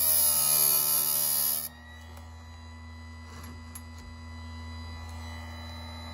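Bench-top electric chainsaw sharpener's grinding wheel grinding a chain's raker tooth (depth gauge) down, its pitch sliding lower under the load, then lifting off at about a second and a half in. The motor then runs free with a steady, quieter hum.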